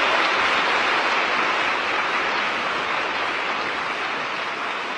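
Audience applauding: dense, even clapping that slowly grows fainter.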